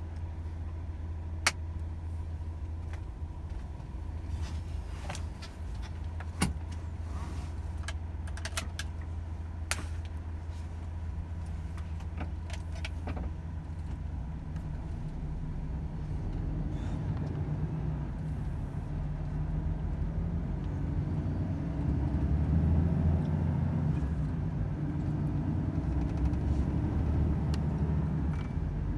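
Volvo FH 500 truck's diesel engine running steadily at a low hum, with a handful of sharp clicks in the first half. From about halfway the engine grows louder and its pitch shifts as it works harder.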